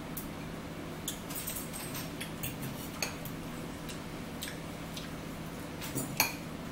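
Metal fork clinking and scraping against a dish while eating: scattered light clicks, the sharpest about six seconds in, over a steady low hum.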